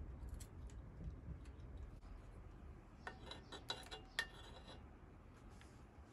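Faint small clicks, then a cluster of sharp metallic clinks with brief ringing about three to five seconds in, from bicycle parts being handled during assembly.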